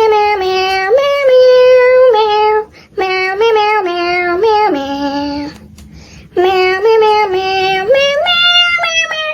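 A high voice singing a short melody in three phrases, with held notes that step up and down in pitch and short breaks between the phrases.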